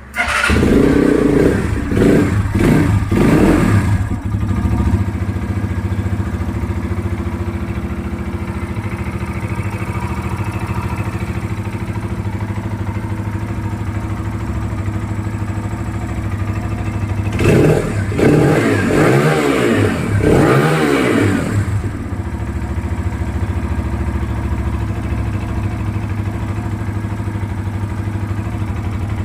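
Euro Viperman 150 EFI motorcycle engine catching, then revved in several quick blips before settling into a steady idle. About 17 seconds in it is revved again in a few rising and falling blips, then drops back to idle.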